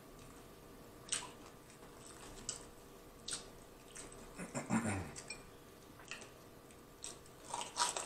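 Close-miked eating sounds: scattered wet mouth clicks and chewing, a short low hum about halfway, and a crunchy bite into a piece of fried chicken near the end.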